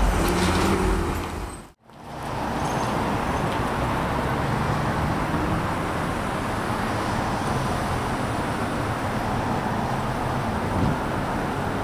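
Street traffic noise: a steady rumble and hiss of passing vehicles. It drops out for a moment about two seconds in, then carries on evenly.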